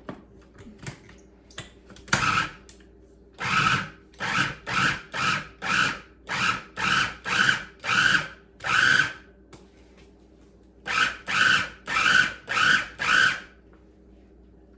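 Food processor pulsing in short bursts, about two a second, in two runs with a pause between. Its blade is chopping cold cubed butter into flour for pie crust.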